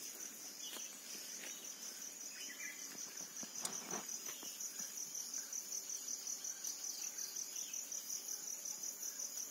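Insects chirring in a steady, high-pitched pulsing trill, with a few faint knocks.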